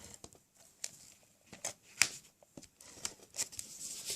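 Cardstock pieces being handled and pressed on a work surface: scattered paper rustles and light taps, the sharpest about two seconds in.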